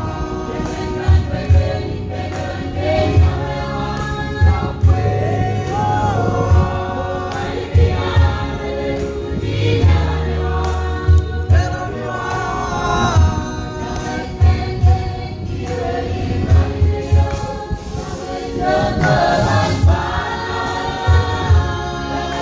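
Group of men's voices singing a hymn together in harmony, in Marshallese. Frequent short low thumps sit under the singing.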